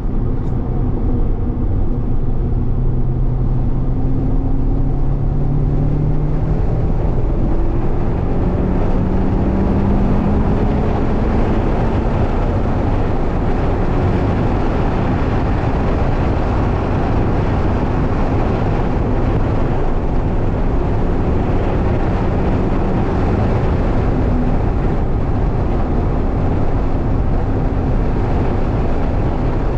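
Mazda MX-5's four-cylinder engine heard from inside the cabin at speed on track: the engine note rises as the car accelerates through roughly the first ten seconds. After that a loud, steady rush of wind and tyre noise over a low engine rumble covers it.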